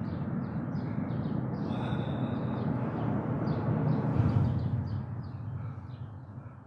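Small birds chirping in short, repeated high notes, several a second, over a steady low rumble that fades away over the last couple of seconds.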